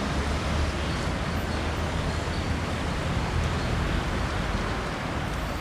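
Steady vehicle running noise: a continuous low rumble with an even hiss above it.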